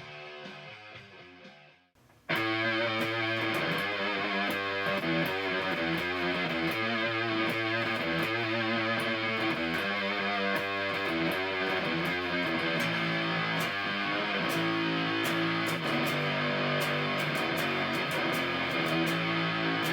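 Gibson Les Paul played through the Noise Therapy FX Le Revenant fuzz pedal into a Fender Hot Rod Deluxe IV amp. A fuzzed chord fades out, then about two seconds in a loud, thick, sustained fuzz riff starts suddenly and keeps going.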